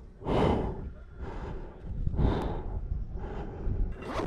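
A person breathing heavily close to the microphone, a deep breath every second or two, the loudest about half a second and two seconds in. A low rumble of wind on the microphone runs underneath.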